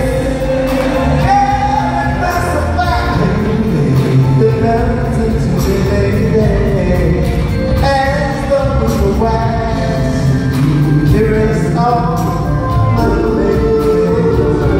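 Male R&B vocal group singing live with a band: lead vocal and group harmonies over keyboard, drums and guitar, heard over the PA in a large hall.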